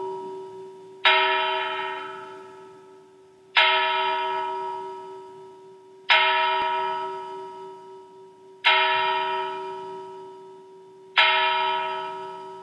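A single large bell tolling slowly, struck five times at an even pace of about one stroke every two and a half seconds. Each stroke sounds the same note and rings on, fading, until the next.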